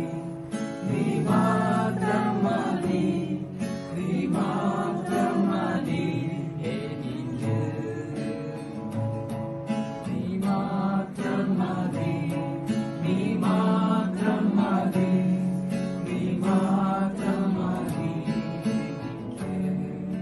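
Men's voices singing along to a strummed acoustic guitar, in sung lines of a couple of seconds with short breaks between them.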